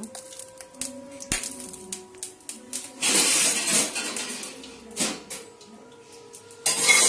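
Steel cookware and utensils clattering and knocking in a kitchen, with a loud rattling stretch about three seconds in that lasts over a second, a sharp knock about five seconds in, and another loud burst near the end.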